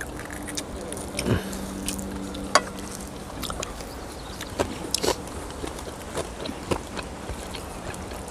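Close-up crunching and chewing of crispy fried food, heard as scattered sharp bites and mouth noises. A faint low steady hum runs under the first three seconds.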